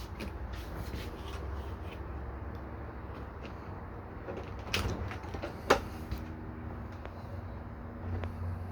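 Two sharp knocks about a second apart, with a fainter one near the end: a door or latch inside a travel trailer being handled, over a steady low hum.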